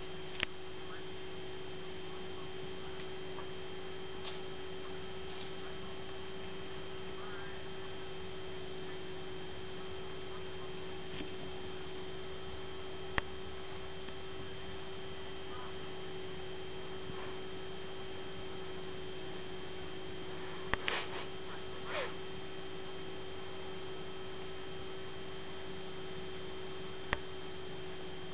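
Steady electrical hum with one constant tone, broken by a few faint, brief clicks.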